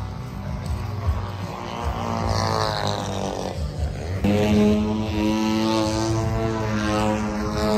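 A radio-controlled model airplane's engine and propeller running. The pitch shifts up and down, then a strong steady drone cuts in about four seconds in.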